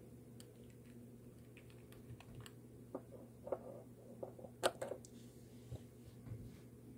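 Light, scattered clicks and taps of small hard objects being handled on a tabletop, bunched together in the middle with the sharpest tap a little before five seconds in, over a faint steady hum.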